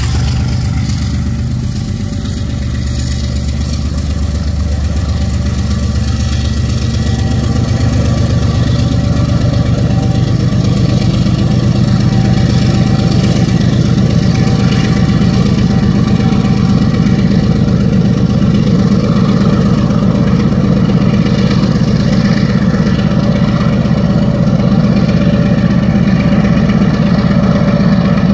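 Diesel freight locomotive engine running steadily with a deep, fast-pulsing drone. It grows louder over the first several seconds, then holds level.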